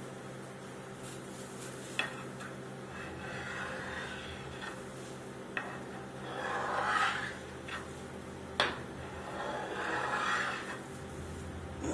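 Metal ice cream scraper drawn three times through a thin frozen sheet of ice cream base on a chilled steel pan, each cut a rasping scrape, with a few sharp taps of metal on the pan. A steady hum from the rolled-ice-cream machine's refrigeration runs underneath.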